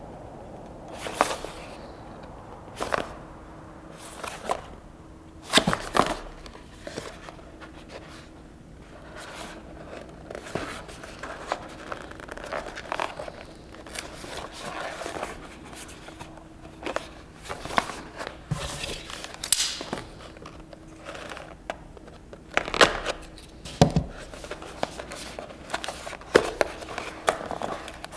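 Product packaging being opened and handled: plastic and cardboard crinkling and tearing, with sharp clicks and knocks from the box and its contents.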